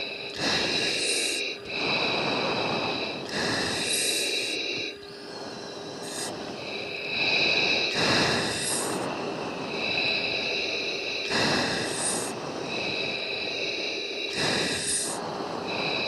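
Breathing into a fighter pilot's oxygen mask microphone: repeated hissing breaths, each about a second long and coming every one and a half to two seconds, over a faint steady hum.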